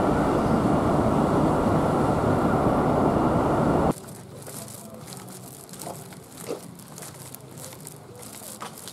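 Steady rumble of a moving vehicle that cuts off abruptly about four seconds in. After that comes a quiet outdoor background with a few faint clicks and light steps.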